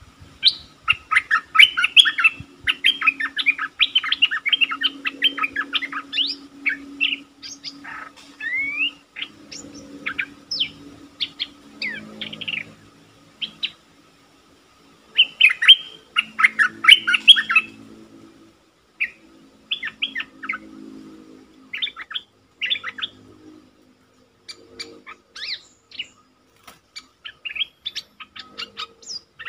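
A stripe-throated bulbul sings a decoy lure song: loud bursts of quick, bubbly chirping phrases separated by short pauses. It sings most densely near the start and again around the middle, and its phrases thin out toward the end.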